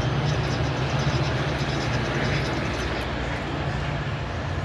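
Two Metra F40PH-3 diesel-electric locomotives, each with an EMD 16-645 two-stroke V16 engine, working hard to push a departing commuter train: a steady deep engine drone mixed with rolling rail noise.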